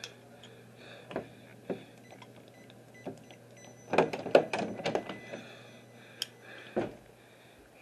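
Scattered knocks and clicks of handling close to the microphone, loudest in a quick cluster about four to five seconds in, over a faint steady hum.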